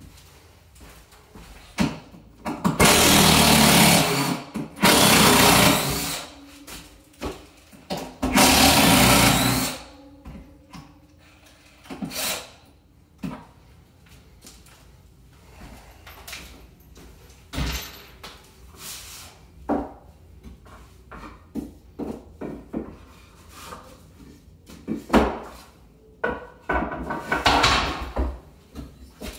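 Cordless drill running in three bursts of a second or so each, starting about three seconds in, followed by scattered knocks and clatter of wood. Near the end a short loud scrape and knock as a pry bar works against the wood blocks.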